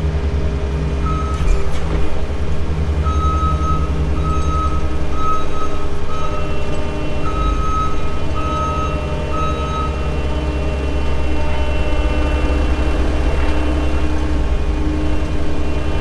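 New Holland L218 skid steer's diesel engine running, heard from the cab, with a reversing alarm beeping in a regular series that stops about ten seconds in.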